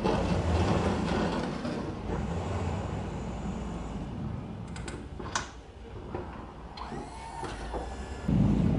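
Pickup truck with a front-mounted snow plow running as it backs away over snow, its engine and tyre noise fading as it goes. A sharp click comes about five seconds in, and a loud low rumble near the end.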